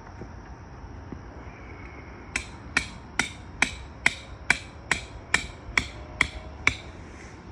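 A hammer striking eleven times in a steady rhythm, about two blows a second, each a sharp knock with a brief ring, starting a couple of seconds in and stopping near the end.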